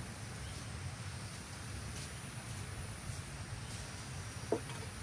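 Faint outdoor background noise: a steady low rumble with scattered faint ticks, and one short brief sound about four and a half seconds in.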